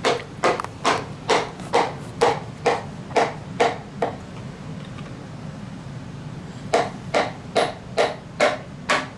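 Wooden hammer handle tapping the top of a piston to drive it and its rings down into a cylinder bore of an engine short block. The taps come about two a second: about nine, a pause of some three seconds, then six more.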